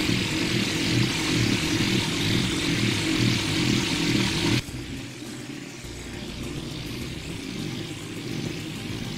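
Air-fed hopper texture gun spraying the main coat of a cement-grout texture coating onto concrete: a steady hiss of compressed air over a low mechanical rumble. About halfway through the sound drops suddenly and goes on quieter and more distant.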